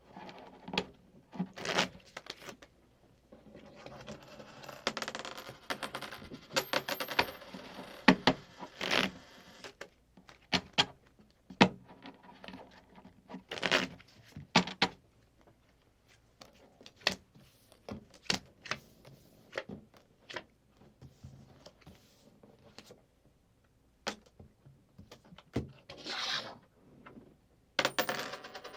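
Playing cards being handled and shuffled while coins clink and drop. The sound comes as irregular sharp clicks, with denser stretches of rapid rustling clatter.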